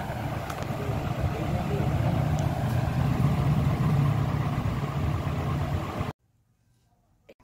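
Steady low rumbling noise that cuts off abruptly about six seconds in, followed by near silence with a single faint click.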